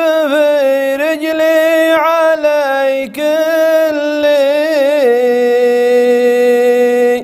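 Solo male voice singing a shaila, a Gulf Arabic chanted poem, drawing the line out in long wavering melismas with no words clearly sung. It ends on a long steady held note near the end, with no instruments heard.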